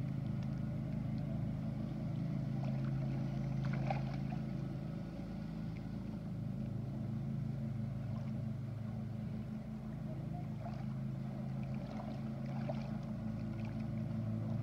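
A motorboat engine running steadily with a low, droning hum, its pitch shifting slightly partway through.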